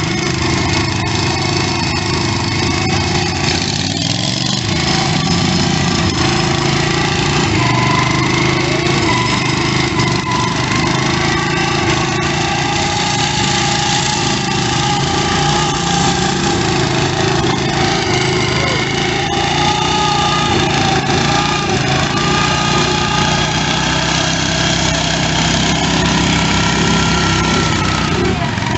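Several small lawn-tractor engines running at once, steadily at high revs, as riding mowers churn through deep mud.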